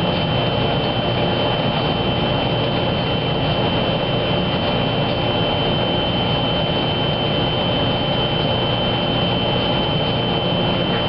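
Wascomat Junior W73 commercial front-loading washer running a steady high-speed spin: a constant mechanical whir with a steady high-pitched whine.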